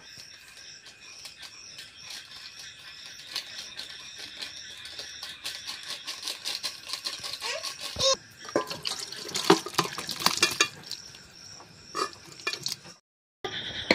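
A metal spoon stirring a thick chicken curry in a pressure cooker pot, with repeated scrapes and clinks against the metal, busiest in the second half. A steady high-pitched drone runs behind it.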